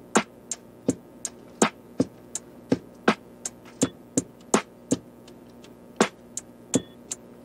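Background music: a sparse electronic beat of sharp percussive hits, about three a second, over a faint sustained backing.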